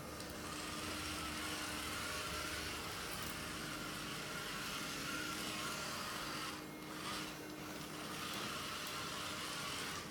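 Small DC motors of a homemade robot vacuum running steadily: a fan-like whir with a faint steady hum, dipping briefly twice about seven seconds in.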